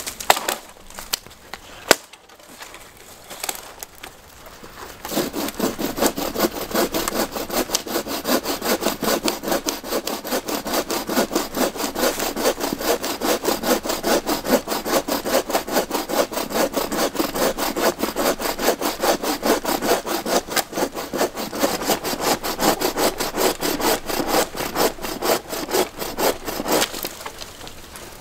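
Handmade wooden frame saw cutting across a fallen cedar log. A few scattered knocks and short strokes come first as the blade is set in the kerf, then a long run of quick, even rasping strokes. The sawing stops about a second before the end as the cut goes through.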